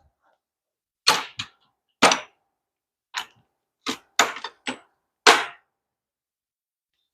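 About nine sharp metallic clanks and clicks at irregular intervals, from hand tools and metal parts being handled and set down while working on a wheel hub.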